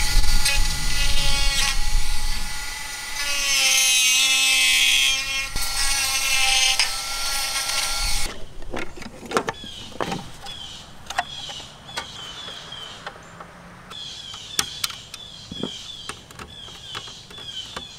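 Handheld rotary tool running at high speed, cutting unused plastic tabs off a car-radio mounting bracket: a steady whine with a grinding rasp as it bites into the plastic. It stops after about eight seconds, and a few light clicks follow.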